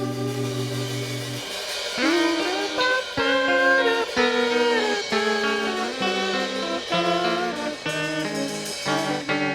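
Guitar in an instrumental passage of a folk-rock song: a held chord for about a second and a half, then a line of single notes, some of them bent or slid.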